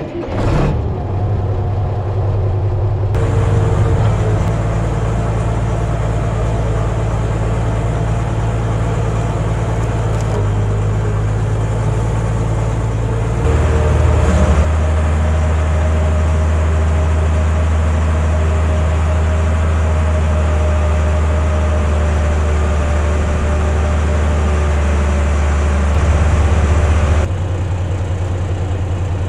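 A heavy vehicle engine running steadily at low speed, its pitch and level shifting abruptly a few times: about three seconds in, near the middle, and near the end.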